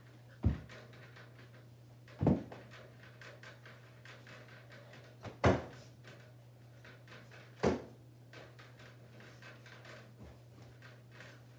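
Four dull, heavy thumps a couple of seconds apart, with a fainter one near the end, over a faint steady low hum: a child landing frog jumps on a carpeted floor and couch cushions.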